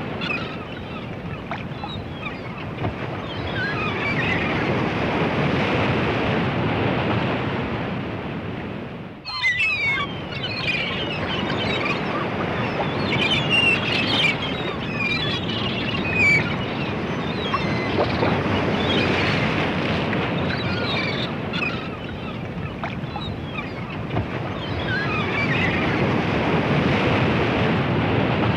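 Ocean surf washing onto a beach, swelling and easing in long waves, with seagulls calling over it, most busily in the middle. The sound drops out briefly about nine seconds in.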